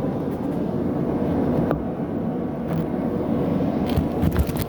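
Steady low rumble of running shop machinery, with a few scattered sharp clicks and a quick cluster of knocks near the end.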